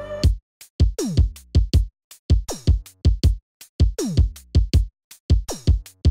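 Background electronic music: a drum-machine beat, with a deep kick whose pitch drops sharply about every second and a half.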